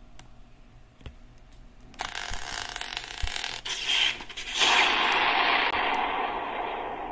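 A couple of soft clicks, then a loud, noisy rushing sound effect that starts suddenly about two seconds in, jumps louder near the middle and slowly fades.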